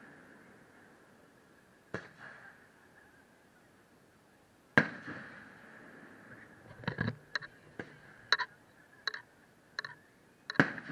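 Aerial firework shells going off: a sharp bang about two seconds in, a louder boom with a trailing echo near five seconds, a quick run of about eight smaller pops from about seven to ten seconds, and another bang near the end.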